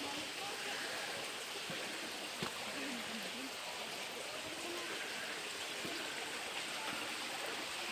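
Steady rushing of a stream's flowing water, with faint distant voices about three seconds in.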